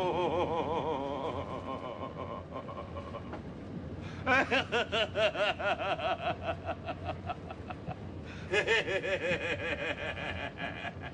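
A person laughing in three bouts of rapid, high-pitched pulses with short pauses between them.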